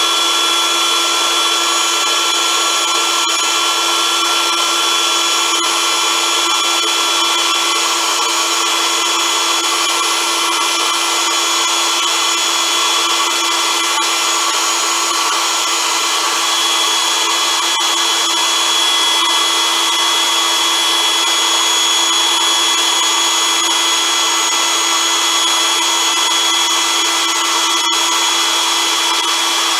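Electric air pump running steadily with a high whine, blowing air into an inflatable vinyl body pillow as it fills.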